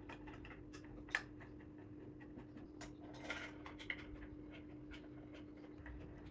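Faint clicks and taps of a Phillips screwdriver turning bolts into the round cross nuts of a wooden easel frame, with a few light knocks of tools against the wood.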